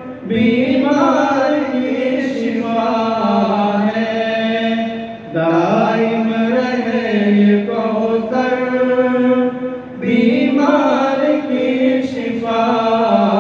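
A devotional naat sung in long, gliding held notes, in three phrases of about five seconds each, with no percussion.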